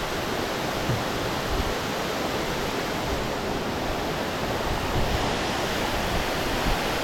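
Steady rushing of river water, an even hiss-like noise that holds at one level throughout.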